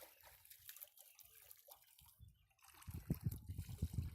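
Water sloshing and trickling, faint at first. About three seconds in come loud, irregular low thumps and rumbling.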